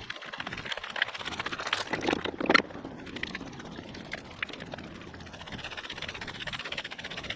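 Footsteps of someone walking, with rustling handling noise and a few sharper clicks about two seconds in.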